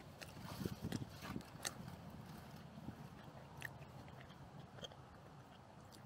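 A person biting into and chewing a sandwich close to the microphone. A cluster of bites and chews comes in the first second and a half, then quieter chewing with a few sharp ticks.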